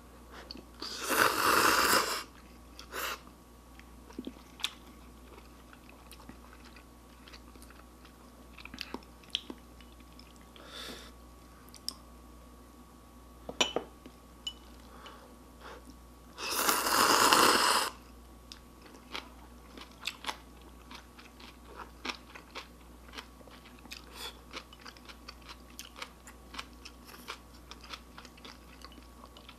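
A person eating ramyun noodles: two loud slurps, about a second in and again a little past halfway, with quiet chewing and many small clicks between.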